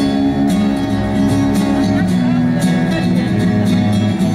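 Live indie-rock band playing an instrumental passage: guitars over bass and drums.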